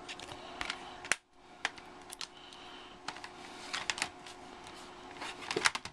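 Plastic DVD case and discs being handled: a scatter of light clicks and taps, with a sharp click about a second in and a quick cluster of clicks near the end, over a faint steady hum.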